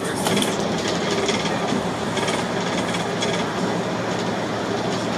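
Volvo B7TL double-decker bus with a 7.3-litre diesel engine cruising at speed, heard inside the upper deck: a steady engine drone and road noise, with irregular rattling from the bodywork.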